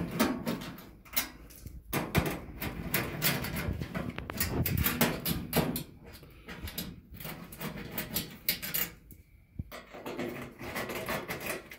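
Hand screwdriver turning out the screws of a Rancilio Classe 5 espresso machine's metal top panel: a run of irregular clicks, scrapes and small knocks of metal on metal.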